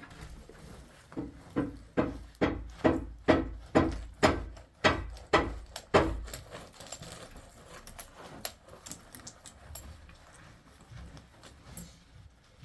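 Rhythmic knocking: about ten heavy blows, roughly two a second, then lighter scattered taps and clicks for the rest of the time.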